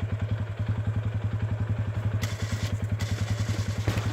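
Arctic Cat 450 ATV's single-cylinder engine running at low revs with a steady, even pulsing beat, with a brief rushing noise about two seconds in and a knock near the end.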